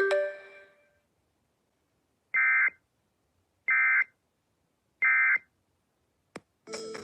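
Emergency Alert System end-of-message data burst: three short bursts of two-tone modem warble, about a second and a quarter apart. Before them, a sharp ringing tone opens and dies away within a second, and music starts just at the end.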